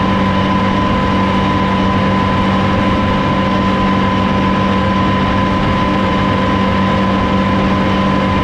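Krone EasyCut F 320 M front disc mower running at working speed on a John Deere 6400 tractor while cutting grass: a steady, unbroken mechanical drone of the spinning cutter discs and the tractor engine, with a constant high whine over it.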